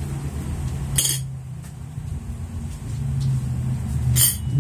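A steady low hum, with two short sharp clinks of a fork against a plate, about a second in and near the end.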